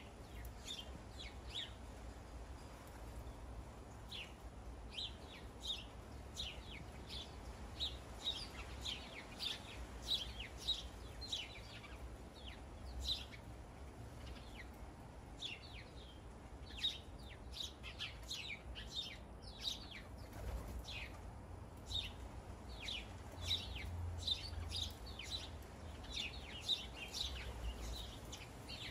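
Backyard birds chirping nonstop, many short, quick chirps that slide down in pitch, several a second and overlapping.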